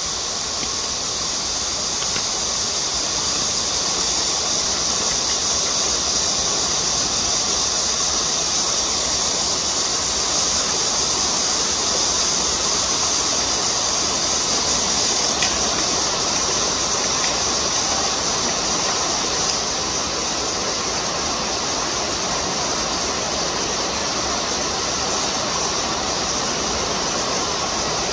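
Steady cicada chorus: an even, high-pitched hiss that holds without a break.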